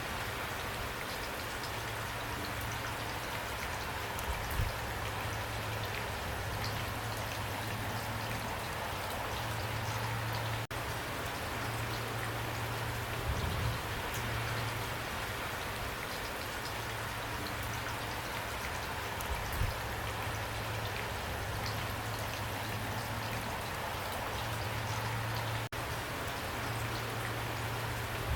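Heavy rain pouring steadily, with a few louder drops landing as short dull thuds now and then.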